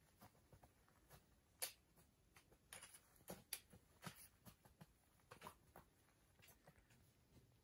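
Near silence with faint, irregular small clicks and taps, about two a second.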